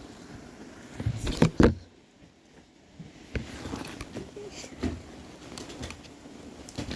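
A few close knocks and thumps about a second in, then a brief lull and scattered small clicks: objects being handled and set down.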